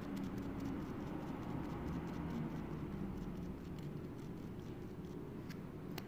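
Faint, scattered light clicks and scratching from a hand handling a foam printing stamp, over a low steady background hum.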